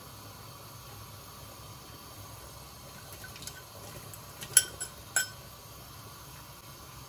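A metal spoon scraping beetroot out of a ceramic bowl, with three sharp ringing clinks of spoon on bowl about four and a half to five seconds in. Under it, a steady low hiss from the pot of soup simmering.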